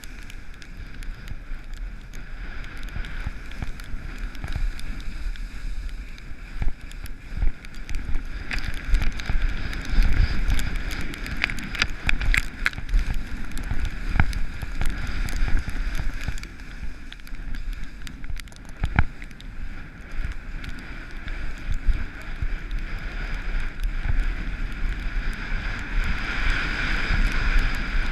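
Skiing or snowboarding descent: edges scraping and hissing over snow, with occasional sharp clicks and knocks and steady wind rumble on the microphone.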